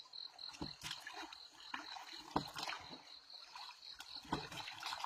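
Water dripping and splashing around a small boat, with scattered sharp knocks against the hull and a steady high tone.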